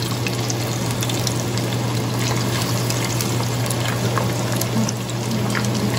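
Fish steaks shallow-frying in hot oil in a pan, a steady sizzle with small crackles throughout, over a steady low hum.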